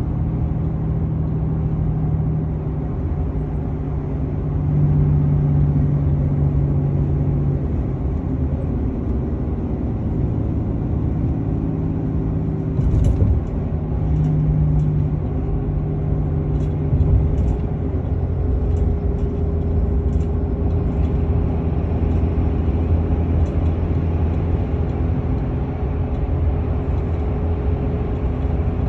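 Engine and road noise of a vehicle towing a trailer at steady speed through snow: a continuous low rumble under an engine hum that shifts pitch slightly a few times. A few faint ticks come about halfway through.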